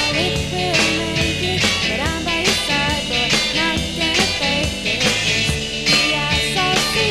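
Indie pop band recording playing: drums keep a steady beat, with a hit about twice a second, under a wavering melody line and chords.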